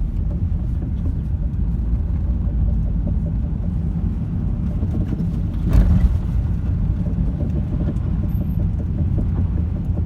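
Steady road and tyre rumble inside a moving Nissan Qashqai, with one loud knock about six seconds in. The owner cannot tell what is causing the knock he hears while driving.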